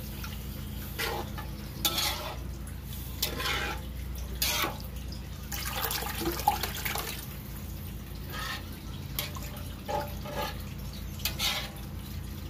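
Dark liquid poured from a pot into a metal pan of pork dinuguan, splashing, while a metal fork stirs and scrapes the pan in short irregular strokes.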